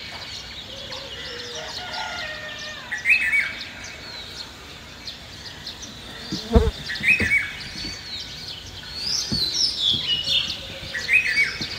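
Several birds chirping and calling, with one short song phrase repeating about every four seconds. A low thump comes about six and a half seconds in.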